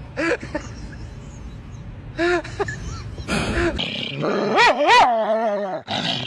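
A dog vocalising: a few short whining yips, then a longer wavering call about four and a half seconds in, the loudest, its pitch swinging up and down.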